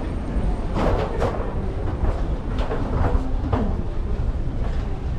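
Steady low rumble of aircraft and airport ground noise during boarding, with a scatter of sharp knocks in the first few seconds.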